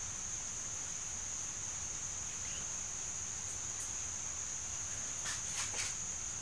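A steady high-pitched drone, with a few light ticks near the end.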